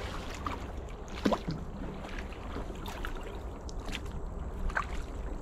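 Kayak paddling on calm water: paddle blades dipping in, with a few short, irregular splashes and drips off the blades.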